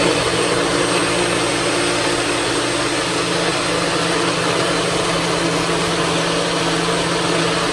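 NutriBullet personal blender running continuously, blending a thick protein shake with frozen banana: a loud, steady motor whir with a constant low hum.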